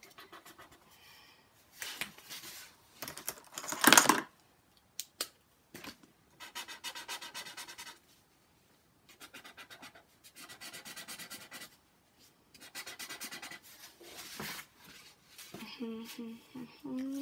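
Coloured pencil scribbling rapidly back and forth on paper, colouring in, in bursts of a second or two with short pauses between. A child starts humming near the end.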